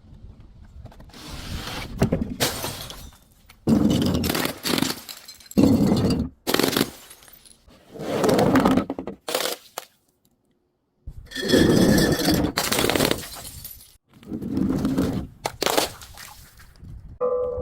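A series of crunching, breaking and scraping sounds as objects are crushed, in separate bursts of a second or two that start and stop abruptly, with a short silence about ten seconds in.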